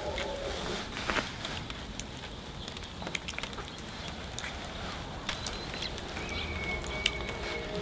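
Quiet outdoor ambience with scattered soft clicks and taps and a low steady rumble, and a short high whistled note, like a bird call, from about five and a half seconds in.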